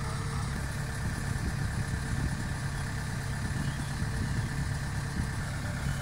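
Kubota combine harvester's diesel engine running steadily while the machine stands still, a continuous even drone with no revving.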